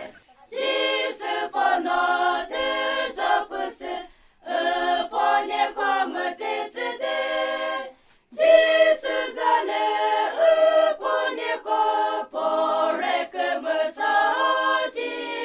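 A small group of voices singing unaccompanied in parts, a Phek (Naga) rice-farmers' work song. It comes in three long phrases of held notes, broken by short pauses about four and eight seconds in.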